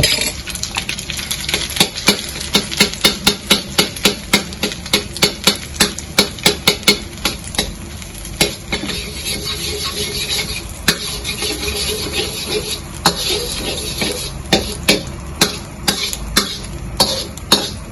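Metal wok spatula scraping and tapping against a wok while salted egg yolk fries in oil. The sharp scrapes come about three a second at first and then more sparsely, over a steady sizzle.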